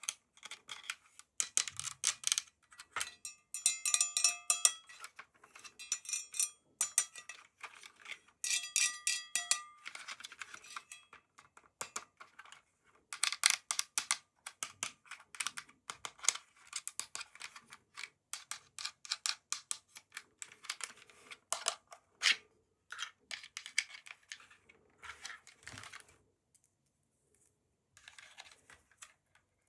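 Dense, rapid clicking and clattering of small hard toy parts being handled, in clusters with short pauses and a few brief ringing clinks, fading out for a couple of seconds near the end.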